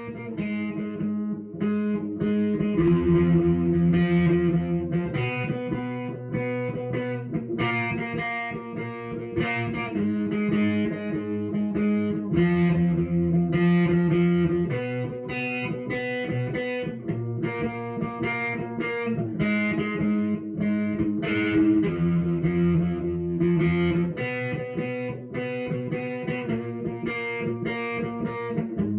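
Instrumental background music with sustained chords that change about every two to three seconds.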